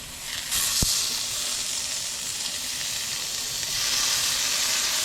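A cobia steak and a slice of halloumi sizzling steadily in butter in a hot frying pan, with a brief knock about a second in.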